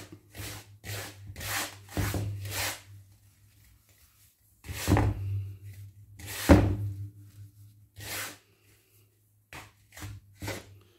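Hands rubbing very fine semolina and oil together in a wooden bowl: gritty rubbing strokes, about two a second at first, then after a pause more spaced out. The semolina is being 'sanded' with oil so the oil coats the grains.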